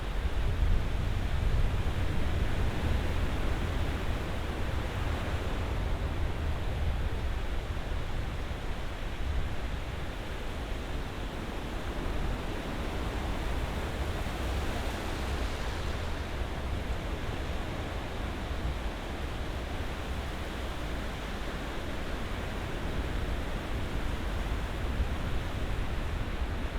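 Ocean surf washing onto a shore: a steady rushing hiss over a deep rumble that swells and eases gently, with a brighter wash of breaking water about halfway through.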